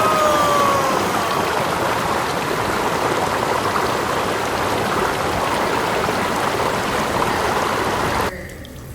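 Slime shower pouring down onto a person, a steady rushing, splashing wash that cuts off suddenly near the end.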